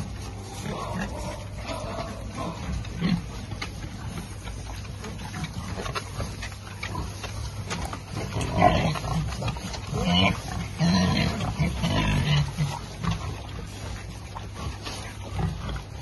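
Domestic pigs grunting and snuffling at close range, a few grunts early and a louder run of them from about halfway through, over a steady low hum.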